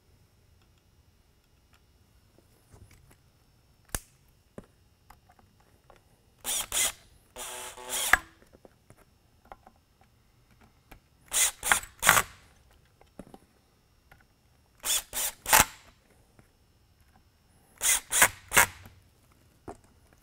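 Cordless drill-driver screwing the spotlight's lighthead housing back together. It runs in four groups of short trigger spurts a few seconds apart, the first with a longer whirring run, and there is a single click about four seconds in.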